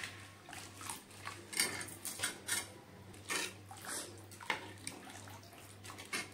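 Steel ladle stirring a watery black-soybean gravy in a metal kadhai, with irregular clinks and scrapes of metal on the pan and the liquid sloshing. A low steady hum sits underneath.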